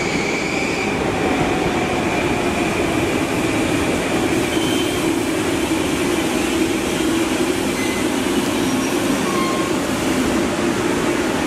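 Long Island Rail Road electric multiple-unit train standing at the platform, its onboard equipment running with a steady hum and hiss. A high whine fades away in the first couple of seconds.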